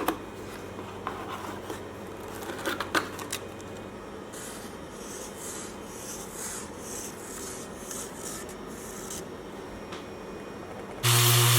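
Rubbing and scraping on wood, with a few light knocks at first and then rhythmic scratchy strokes, roughly one and a half a second. About eleven seconds in, a power sander fitted with a sanding disc switches on and runs with a loud steady hum.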